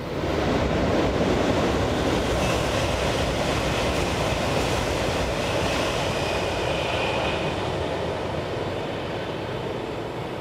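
JR East E2 series Shinkansen passing at high speed: a loud, steady rush of air and wheel noise that comes up suddenly, is loudest about a second in, and then fades slowly.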